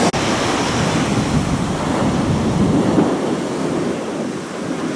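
Small waves breaking and washing up a sandy beach, a steady rushing surf that swells and eases, with a brief click just after the start.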